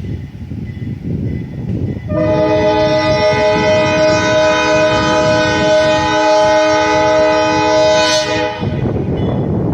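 ALCO RS-11 diesel locomotive's multi-chime air horn sounding one long blast of about six seconds, starting about two seconds in and cutting off near the end, over a steady low rumble.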